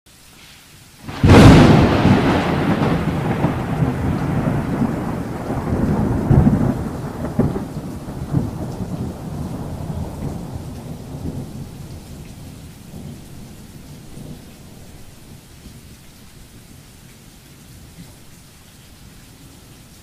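A thunderclap cracks about a second in, then rolls on as a long rumble with a few further swells, dying away slowly. A hiss of steady rain lies beneath.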